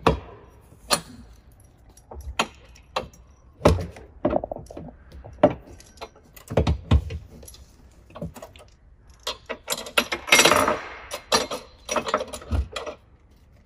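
Metal clanks, knocks and rattles as the steel frame of a Mayakoba pedicure spa chair top is shifted and handled to line up its screw holes with the bar risers, with a longer scraping rattle about ten seconds in.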